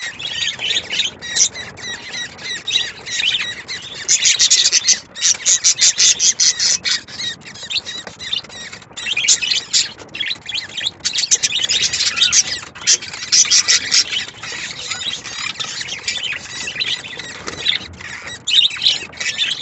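Budgerigars chirping and chattering: a dense run of rapid, high-pitched chirps, louder in stretches about four and eleven seconds in.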